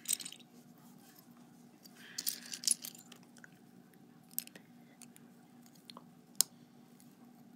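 Plastic Lego bricks being handled and pressed together: a handful of scattered sharp clicks with a short rattle of pieces about two seconds in, the sharpest click near the end.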